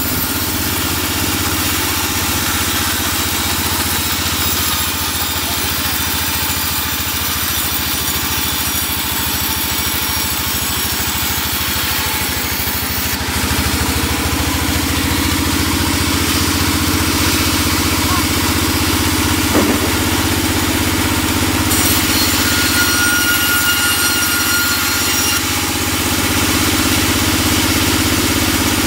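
Vertical band sawmill running steadily while ripping a timber beam lengthwise: a continuous mechanical drone with a hiss over it. About two-thirds of the way through, a brief short glide rises above it.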